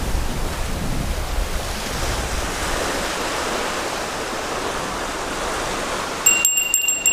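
Steady rush of small surf washing onto a sandy beach. About six seconds in, the small bite bell on a surf rod's tip starts ringing in quick jingles as a fish strikes the bait.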